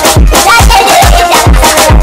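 Upbeat dance music with a steady, regular kick-drum beat.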